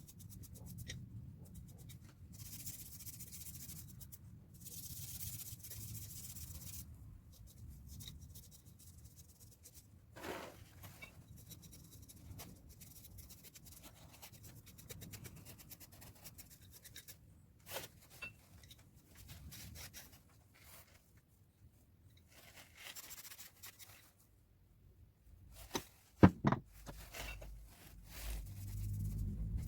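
Hand work on small tool parts: stretches of rubbing and scraping, with a few scattered clicks and two or three sharp knocks near the end.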